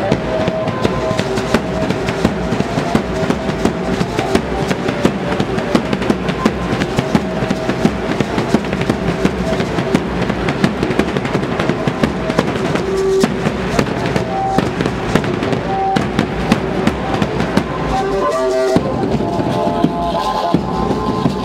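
Dance band of bass drum and melody instruments playing a matachines dance (danza de la pluma), the drum beating steadily under a simple repeating tune, with dense sharp clicks throughout.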